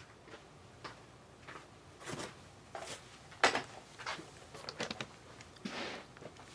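Handling of a trading-card box and its packaging: a string of short rustles, taps and scrapes, the loudest about three and a half seconds in.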